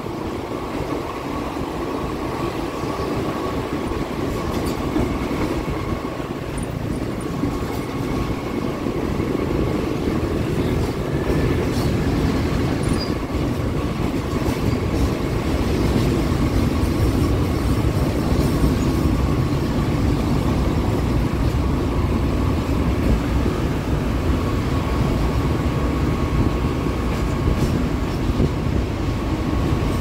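Diesel-electric locomotive under way: a steady engine and rolling rumble with a faint, steady high whine, growing slightly louder over the first ten seconds and then holding steady.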